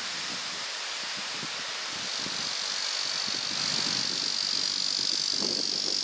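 Steady rushing of Nanatsu-daki, a 90 m waterfall, as a continuous hiss of falling water that grows a little louder about halfway through.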